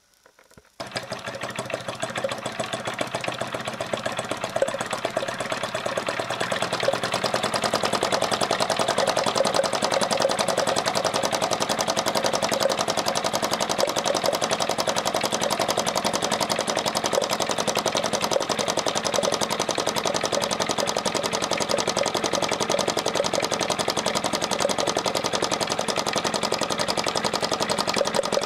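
Homemade model engine starting about a second in and running with a fast, steady mechanical clatter, growing louder over the first several seconds before settling. It is driving a flat-belt line-shaft transmission.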